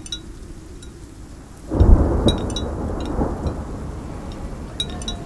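A thunderclap breaks about two seconds in and rolls away slowly over steady rain. A small hanging wind bell tinkles briefly a few times.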